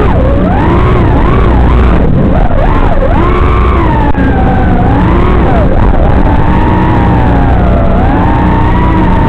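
FPV quadcopter's brushless motors and propellers whining, the pitch rising and falling continuously with throttle as it flies, over a steady low hum.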